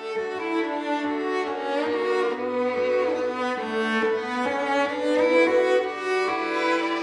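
String music: a violin melody over cello, in held notes that move from one to the next every half second or so.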